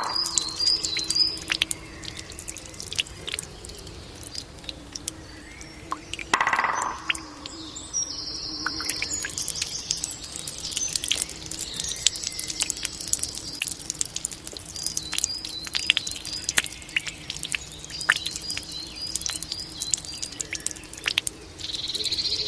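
Water dripping and trickling from a Japanese bamboo fountain, in a steady patter of small drops. Birds chirp at times, and about six and a half seconds in there is a single louder, short hollow sound.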